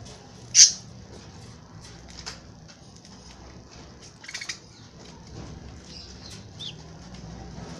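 Young lovebirds calling: one loud, shrill chirp about half a second in, a short chattering call around four seconds, and a brief falling note near the end, with faint scratchy clicks between.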